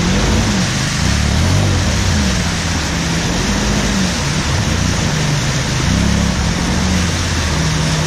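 Polaris RZR XP 4 1000's parallel-twin engine revving up and down over and over, with its wheels churning in deep mud: the machine is stuck nose-down in the mud hole. A steady rush of spinning tyres and mud runs under the engine throughout.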